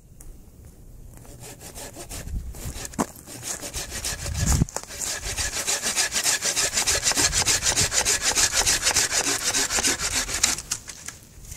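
Hand saw cutting through a wooden branch: a few scattered strokes and a thump at first, then quick, even back-and-forth strokes for about six seconds that stop near the end.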